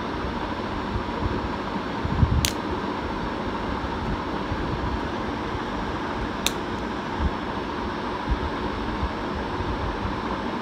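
A small 12 V relay clicks sharply twice, about two seconds in and again about four seconds later: it trips when the wires are shorted and clicks back when the board is reset. A steady noise like a fan runs underneath.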